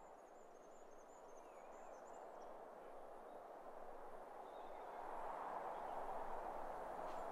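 Faint, even outdoor ambience noise swelling slowly louder, with faint high chirps in the first couple of seconds.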